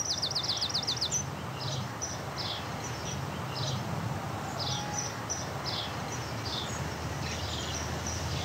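Outdoor birdsong: a fast high trill lasting about a second at the start, then short high chirps repeated every half second or so, over a steady low background rumble.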